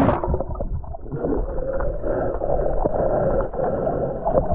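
Muffled water sounds with the camera submerged: sloshing and bubbling, dulled from about a second in, with many small clicks.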